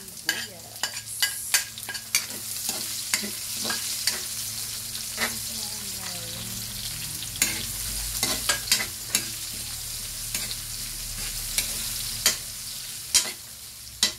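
Diced red onion and bay leaves sizzling in hot oil in a metal wok, with a metal spatula clicking and scraping against the pan as they are stirred. The steady sizzle is broken by many sharp clicks of the spatula.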